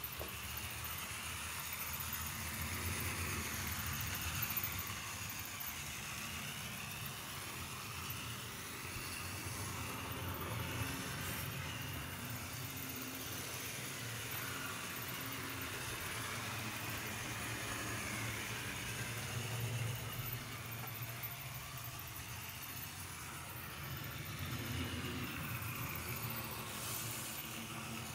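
TT-scale model train running around the layout: a steady electric-motor whir and wheel hum on the track that swells and fades every several seconds as it circles.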